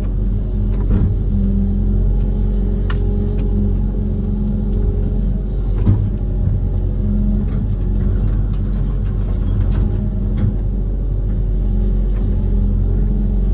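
Amphibious excavator's diesel engine running steadily at a constant pitch, with a few sharp knocks or clanks now and then.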